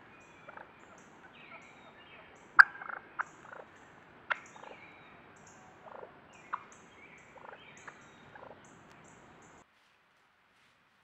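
Wild turkeys giving short, sharp clucking calls, the loudest about two and a half seconds in and a few more spread through, over faint background birdsong and insect ticking. All sound cuts off near the end.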